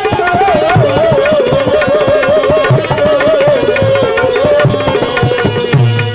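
Bhajan music: a sustained, wavering melody line drifts slowly down in pitch over regular hand-drum strokes and sharp percussion clicks.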